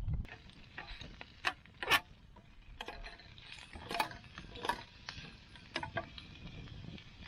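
Wood campfire crackling: irregular sharp pops and snaps over a low hiss, the loudest about two seconds in and again about four seconds in.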